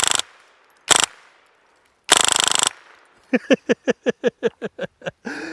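Full-auto AM-15 .22 LR rifle firing three short bursts, each a rapid buzz of shots, the last and longest about two seconds in. Then comes a quick run of about a dozen short pitched sounds.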